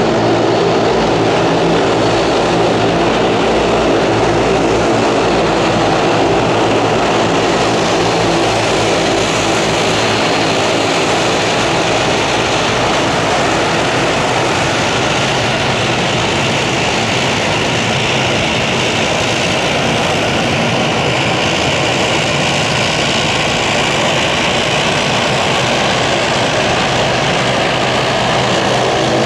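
Aircraft engines running steadily and loudly: a broad roar over a low hum of several steady tones, with a higher hiss growing stronger about halfway through.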